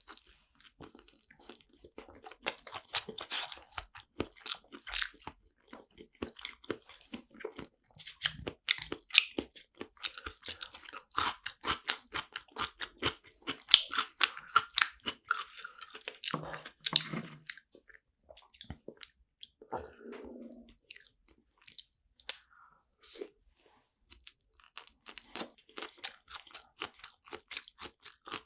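A person chewing sushi close to the microphone: a dense run of wet, crunchy mouth clicks that thins out for a few seconds after the middle and then picks up again near the end.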